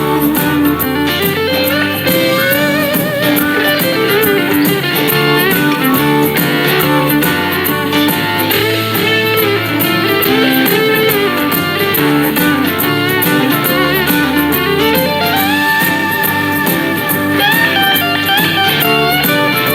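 Blues-rock music played on an Anker Soundcore Bluetooth speaker: an electric guitar lead with bending notes over bass and a steady drum beat.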